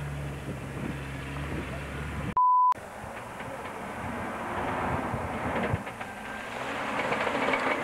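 A short, loud, single-pitch electronic beep about two and a half seconds in, where one recording is spliced onto the next. Before it, the steady low drone of a UAZ off-roader's engine; after it, wind noise on the microphone over a Mitsubishi Pajero driving across a muddy field.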